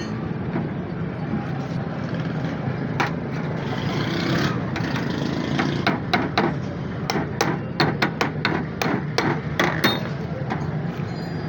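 A run of sharp metallic knocks, two or three a second, over a steady low hum; this fits tool or hammer strikes on metal during the repair. The knocks come thickest from about halfway through and stop shortly before the end.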